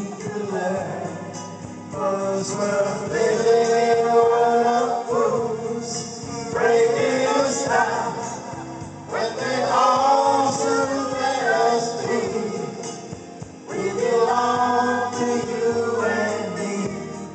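A group of people singing together into handheld microphones, in long held phrases with short breaks between them.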